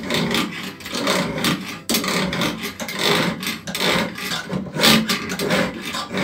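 File on a knife-bevel filing jig, guided by a steel rod, pushed back and forth in scraping strokes about once a second.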